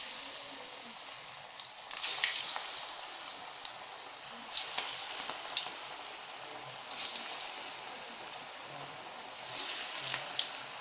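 Moong dal pakoda batter deep-frying in hot oil, a steady sizzle with louder crackling flare-ups every couple of seconds as more dollops of batter drop into the oil.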